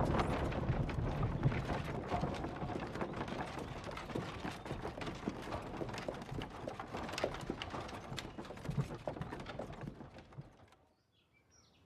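Horse hooves clattering in a dense, irregular patter, fading away near the end.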